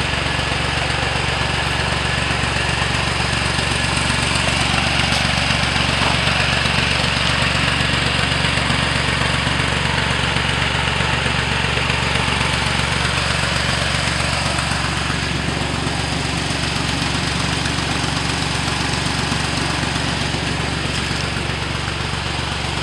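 Massey Ferguson 135 tractor engine running steadily at a constant speed under load, driving an irrigation water pump by a long flat belt.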